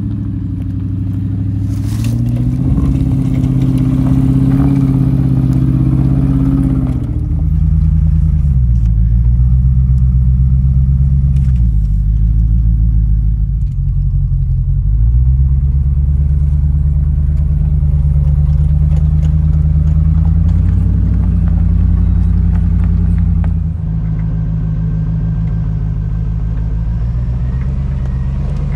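Land Rover Discovery's engine working under load up a steep, rocky hill climb, revving up and dropping back several times as the throttle changes, with a sudden drop in level near the end.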